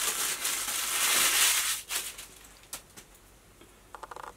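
Tissue paper crinkling and rustling as it is unwrapped from a small bottle, stopping a little before halfway, followed by a couple of soft ticks.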